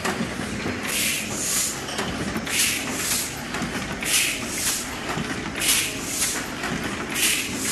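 Heidelberg Cylinder SBG die-cutting machine running: a steady mechanical clatter with a pair of short air hisses repeating about every second and a half, once per machine cycle.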